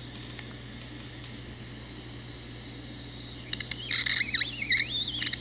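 Ouija board planchette squeaking as it is dragged across the board: a burst of wavering high squeaks with small clicks for about two seconds near the end. The planchette is sticking rather than gliding smoothly.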